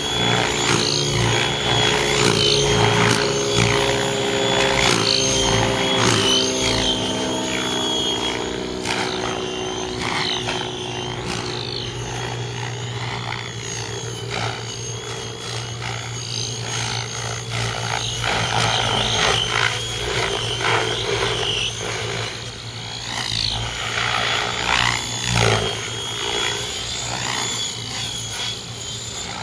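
Align T-Rex 700E electric RC helicopter in flight: the whine of its electric motor and drivetrain with the whoosh of its rotor blades, swelling and fading in pitch and loudness as it manoeuvres.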